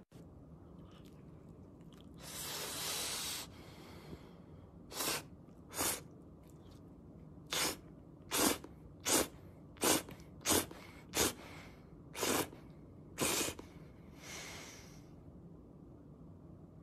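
Noodles being slurped through the lips: one longer slurp about two seconds in, then about ten short, sharp slurps one after another.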